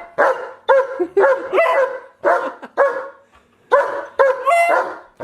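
A dog 'talking' on cue: a run of about nine short, pitched, yowling barks in quick groups, with a brief pause about three seconds in.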